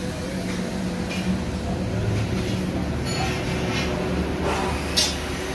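Steady low background rumble with a faint steady hum, and a short sharp click about five seconds in.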